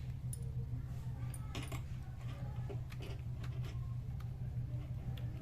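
Typing on a Dell KB216 membrane keyboard: irregular, uneven key clicks in short runs, over a steady low hum.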